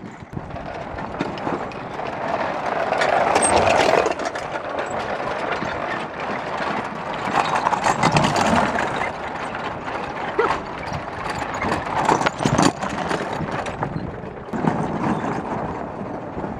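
Pedal go-karts rolling along the track: a steady rolling noise with a few sharp knocks.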